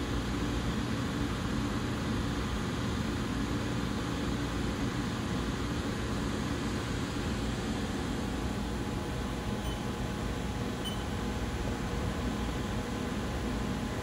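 Haas VF-2 CNC vertical machining center running under power: a steady hum with a few faint constant tones over it.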